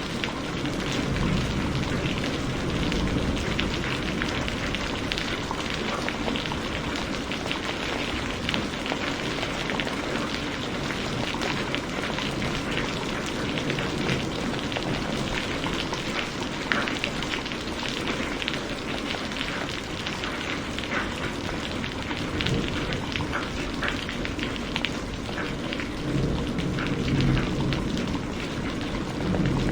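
Heavy rain falling steadily, with many separate drops ticking on a surface and a deeper rumble swelling in the low end near the end.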